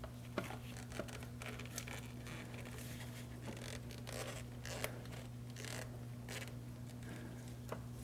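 Rubber air-intake boot being worked onto a throttle body by hands in nitrile gloves: faint scraping and rustling with a few small clicks, over a steady low hum.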